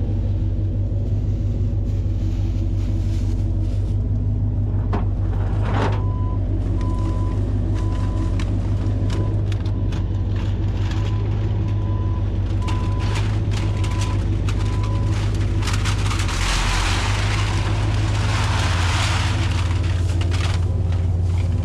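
Penske box truck's engine idling steadily, heard from inside the cab. From about six to fifteen seconds in, a single-pitch beeper sounds over and over, a little more than once a second, and later comes a few seconds of hissing.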